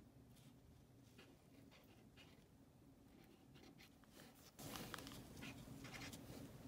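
Felt-tip marker drawing on paper: faint, short scratchy strokes. About four and a half seconds in, a louder noise sets in over the strokes.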